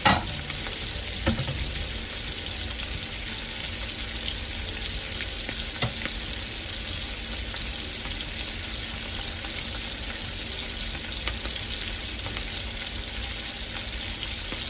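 Chapila fish shallow-frying in hot mustard oil in a pan: a steady sizzle with a few sharp pops of spitting oil.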